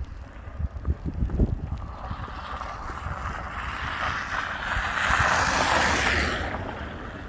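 An SUV driving past on a slushy, snow-covered road: the hiss of its tyres through the slush swells as it approaches, is loudest as it passes close by, then falls away quickly. Wind buffets the microphone with a low rumble, most in the first couple of seconds.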